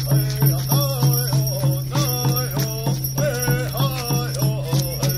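Hoop dance song: a drum beaten in an even, fast rhythm of about four beats a second, with a singer's voice chanting over it.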